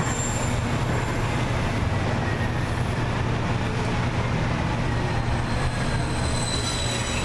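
Steady rumbling rush of a freight train of double-stacked shipping containers passing close alongside, heard from inside a MAX light-rail car, with a faint thin whine slowly falling in pitch.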